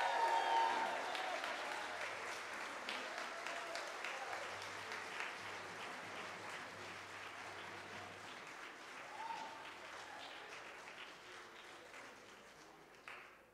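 Church audience applauding. The applause starts loudest just as the a cappella singers' last held note ends, then gradually tapers off over the following seconds.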